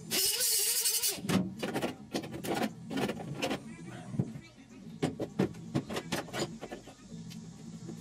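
A short loud hiss for about the first second, then a run of light metallic clicks and taps as a small steel patch panel is handled and pressed up against the inner roof flange of the cab to test its fit.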